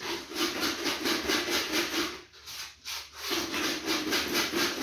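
Rhythmic scraping and rubbing of a hand pressing pulp through a plastic strainer, about five strokes a second, with a pause of about a second near the middle: juice being strained by hand.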